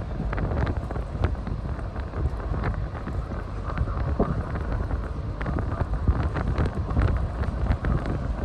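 Wind buffeting the microphone: a gusty, uneven low rumble with short rattling crackles.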